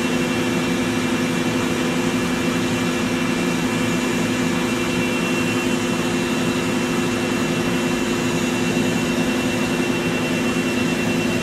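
Steady mechanical drone of running industrial equipment: an even whir with several constant hum tones, unchanging throughout.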